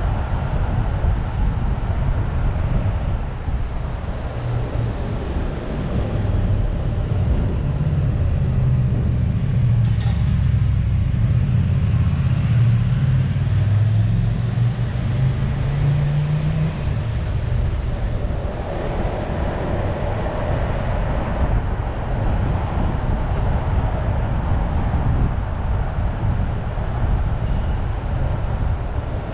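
Car driving on a road: steady engine and tyre noise, with the engine note climbing for several seconds as it accelerates, then dropping away.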